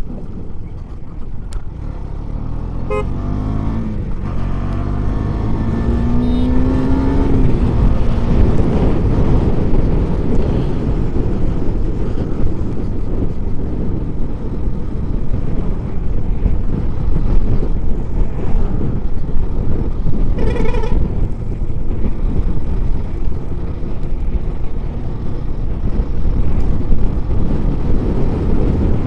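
Husqvarna motorcycle riding along a road, with heavy wind rush on the microphone. The engine pitch climbs over the first several seconds as the bike accelerates through the gears. A vehicle horn toots briefly about three seconds in and again around twenty seconds in.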